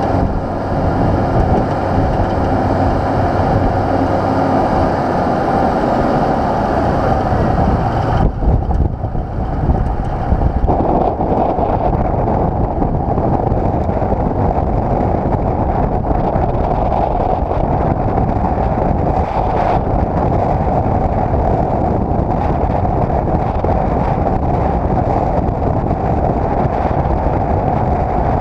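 Nissan GU Patrol's TD42 4.2-litre six-cylinder diesel engine and road noise while driving, heard from a camera mounted on the outside of the vehicle's front. About eight seconds in the sound changes abruptly, its higher hiss dropping away.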